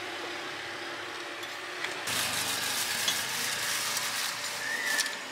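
Kue ape batter frying in a small hot pancake wok: a steady sizzle that turns suddenly louder, with dense crackling, about two seconds in.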